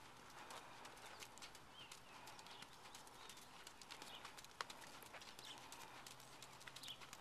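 Faint hoofbeats of a paint pony cantering on a sand arena, soft irregular footfalls with one sharper click about four and a half seconds in.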